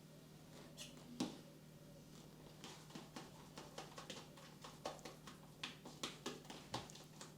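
Fork tapping and scraping against a bowl as scrambled eggs are stirred: a run of light clicks, about two or three a second, after a single louder knock about a second in.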